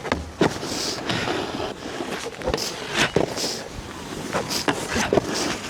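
Snowboard sliding and scraping over hard snow, with wind on the microphone and a few short knocks.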